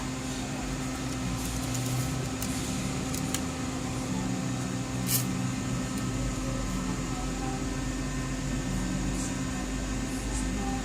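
Steady mechanical hum of a fan or air conditioner in a small room, with a few faint light clicks; the clearest click comes about five seconds in.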